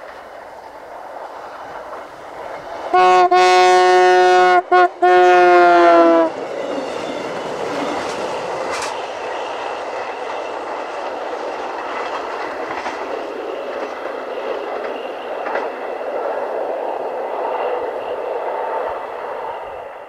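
Diesel passenger railcar sounding its horn in two long blasts about three seconds in, then running past with a steady rumble of wheels on rail and a few faint clicks over rail joints, fading near the end.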